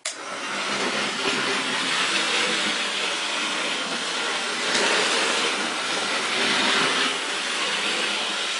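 Hornby OO gauge model of a GWR King class 4-6-0 locomotive running around the track: a steady, even hiss-like running noise from its motor and wheels on the rails.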